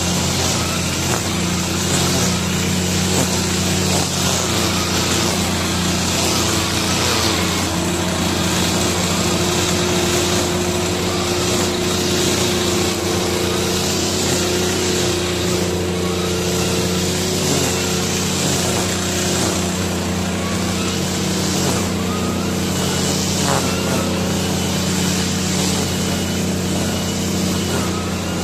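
Backpack brush cutter's small engine running steadily, its line trimmer head whirring through grass, together with a walk-behind lawn mower's Honda 190cc engine running. The engines hold a steady pitch with no let-up.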